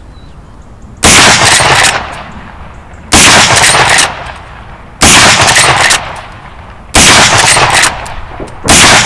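Five heavy shots from a short-barrelled Ruger Marlin 1895 lever-action rifle in .45-70, fired about two seconds apart. Each shot rings on loudly for close to a second before dying away.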